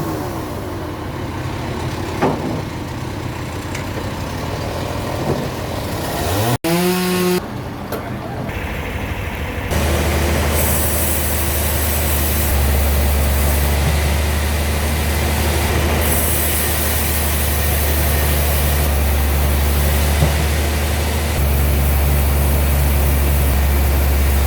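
Heavy machinery running, with engine and motor noise. About six and a half seconds in, a pitch rises and then the sound cuts off abruptly. From about ten seconds a steady low drone with hiss continues.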